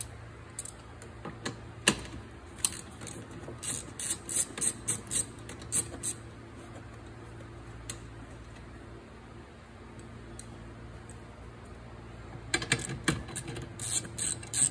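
Ratchet wrench clicking in short runs as the 13 mm wiper-arm nuts are turned, with a quieter stretch in the middle and a dense run of clicks near the end. A steady low hum sits behind it.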